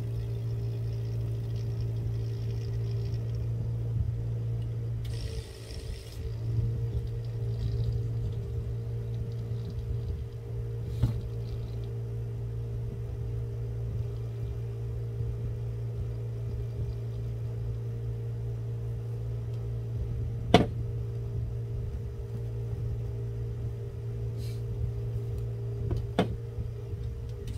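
A steady machine hum runs throughout, with a few sharp clicks; the loudest click comes about two-thirds of the way through.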